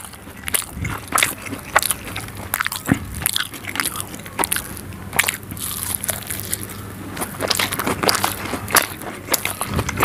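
Close-miked eating of soft egg omelette in spicy gravy: wet chewing with lip smacks and mouth clicks, several a second at an uneven pace.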